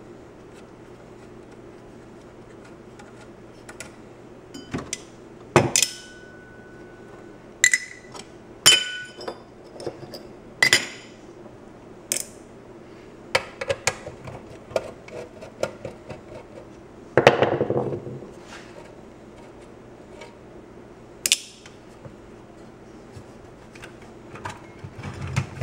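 Scattered metallic clinks and taps as screws and small parts come off the steel case of a 1967 International pickup's AM radio and are dropped into a steel parts tray. A few of the clinks ring briefly, and there is a longer scraping rattle about two-thirds of the way through, over a faint steady hum.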